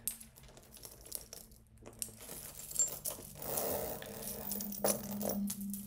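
Coach Dinky metal chain strap being unclipped from a handbag: chain links clinking and the clasp clicking, in scattered sharp clicks that grow busier about three and a half seconds in.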